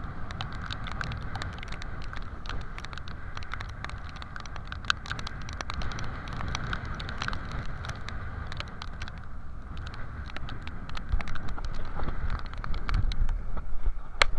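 A boat's engine drones steadily while wind buffets the microphone and spray and raindrops tick against the camera. The buffeting grows louder near the end.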